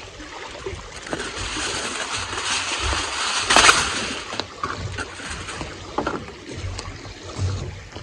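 Heavy-duty aluminum foil crinkling as sheets are pulled off the roll and torn off on the box, with a loud rip about three and a half seconds in, followed by lighter crackles as the sheets are handled and laid flat.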